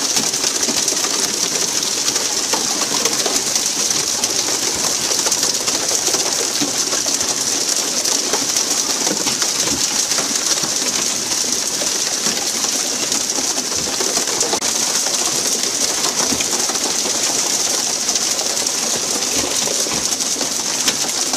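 Steady hiss of water spraying and splashing from the sprinkler jets along the sides of a pole-and-line tuna boat and the churned sea around it.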